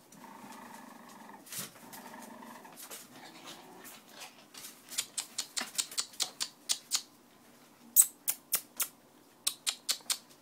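Boston Terrier puppies playing: a low growling for the first few seconds, then a run of short, sharp yaps, two or three a second, the loudest about eight seconds in.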